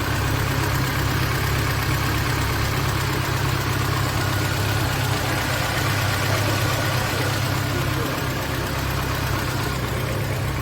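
Chevrolet Niva engine idling steadily.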